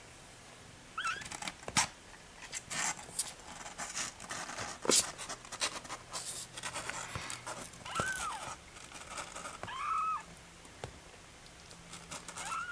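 A litter of two-week-old kittens giving a few short, squeaky mews that rise and fall in pitch, spaced several seconds apart. Scratchy rustling and light clicks run underneath as the kittens crawl over one another.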